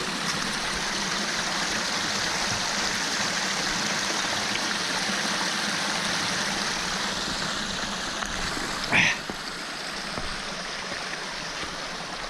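A small mountain stream running, a steady rush of water that softens slightly near the end. About nine seconds in comes a single short, sharp click.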